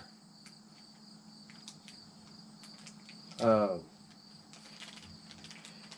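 Steady high chirring of insects, with faint scattered clicks and a short falling 'hmm' from a man about halfway through.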